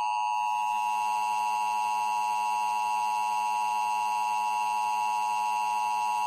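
Emergency Alert System attention signal: a steady two-tone electronic alarm held unbroken.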